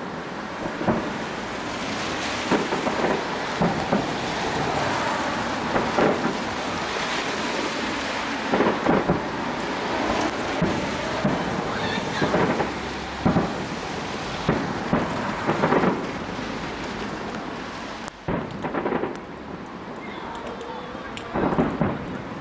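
Aerial firework shells bursting at a distance: more than a dozen irregularly spaced bangs over a continuous hiss.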